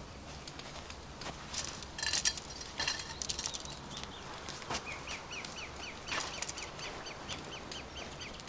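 Rustling and light knocks of camping gear being handled in a forest clearing, loudest about two seconds in. From about five seconds in, a bird calls a fast series of short, evenly repeated chirps, about four a second.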